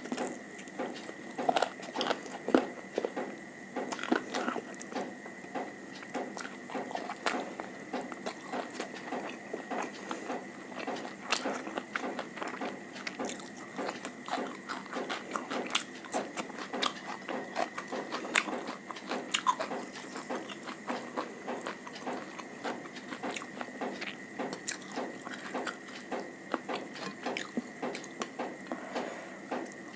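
Close-miked eating: a person chewing and biting food, with many quick, irregular smacks and clicks, over a faint steady high tone.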